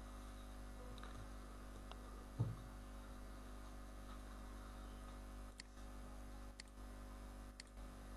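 Steady low electrical mains hum from the recording setup, with a single low thump about two seconds in and a few faint sharp clicks, about one a second, in the second half.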